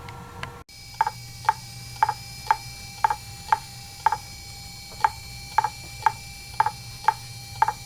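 Regular ticking, about two sharp ticks a second, each with a short ringing note, over a low steady hum. It starts suddenly just under a second in.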